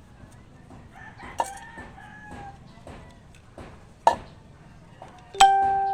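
Sharp metallic clinks of tools or small metal parts, the loudest near the end: a strike that rings out and fades over about a second. A rooster crows in the background.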